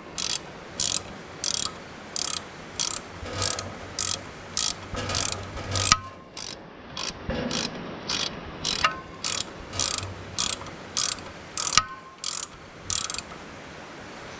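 Ratchet wrench clicking in short, even strokes, about two a second, snugging up the nut on a haybine belt tensioner's adjuster bolt; the clicking stops near the end.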